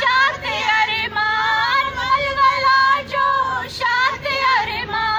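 Girls' voices singing a song together, in sustained melodic phrases with short breaks between them.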